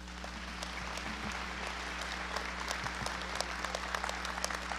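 Large audience applauding, many overlapping claps, swelling over the first second and then holding steady.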